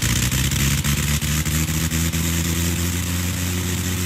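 Gnome Monosoupape rotary aero engine and its propeller running steadily just after catching, the pitch creeping up slightly as it picks up speed.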